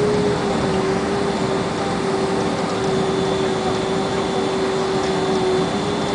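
Boeing 767 cabin noise while the airliner taxis after landing: a steady engine and airflow rush with a constant whine.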